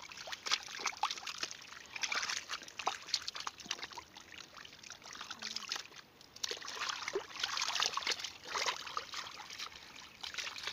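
Hands digging and scooping through wet mud and muddy water, squelching and sloshing in irregular bunches with short lulls between.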